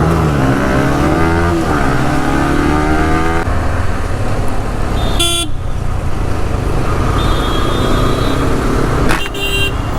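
Road traffic. A vehicle engine revs up and down for the first few seconds, then a steady traffic rumble follows, with a short horn toot about halfway through and another near the end.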